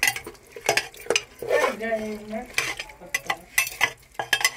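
A metal slotted spoon stirs meat, onion and tomato in a metal pressure cooker, clinking and scraping against the pot in quick irregular strokes. A short low hum comes about halfway through.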